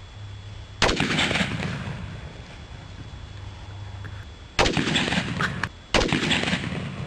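Three gunshots: one about a second in, then two more a little over a second apart near the end, each trailing off over about a second.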